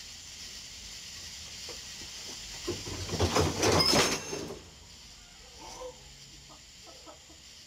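A wooden-topped picnic table tipping up under a person's weight, with a clatter of knocks lasting about two seconds, about three seconds in, over a steady high hiss.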